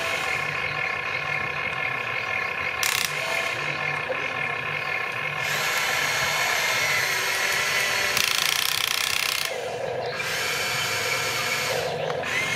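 Electric gear motors of a remote-control model excavator whining and grinding as its boom, arm and bucket move. The whine changes several times as one movement stops and another starts.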